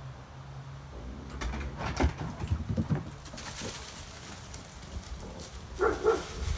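A dog and a coyote playing: a couple of seconds of scuffling and knocking, then two short canine yips near the end.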